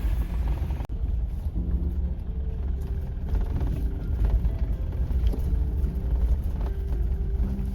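SUV driving slowly over a rough off-road track: a steady low engine and road rumble, with a faint engine hum running through it.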